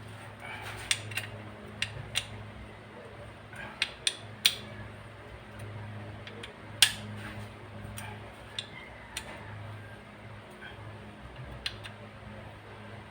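Metal tools and small metal parts clinking and tapping during hand work: about a dozen sharp clicks at irregular intervals, the loudest about seven seconds in, over a steady low hum.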